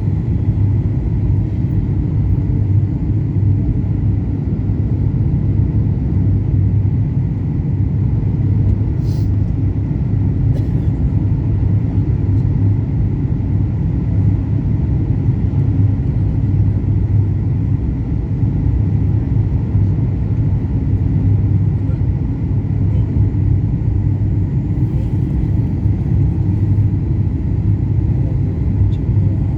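Steady low rumble of an airliner cabin, the engines and airflow heard from inside the plane, with a couple of faint clicks about nine and ten seconds in.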